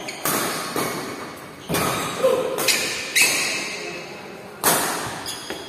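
Badminton rackets striking the shuttlecock in a fast rally: about six sharp hits at uneven intervals, each ringing on in an echoing hall.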